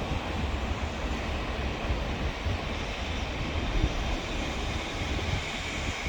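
Container freight train rolling into the station, a steady noise with a heavy low rumble, with wind buffeting the microphone.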